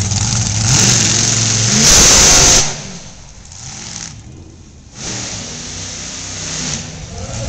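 Monster truck engine revving hard under acceleration, with a rising pitch and loudest about two seconds in. The throttle drops off suddenly at about two and a half seconds and it goes much quieter, then the engine picks up again about five seconds in and builds toward the end.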